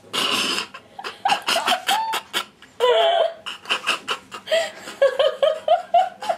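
People laughing hard in short bursts, ending in a run of quick, high-pitched laughs.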